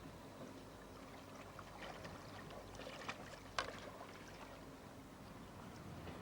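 Quiet harbour water lapping and splashing softly, as if stirred by paddling or a small boat, with scattered small splashes and one sharp knock about three and a half seconds in.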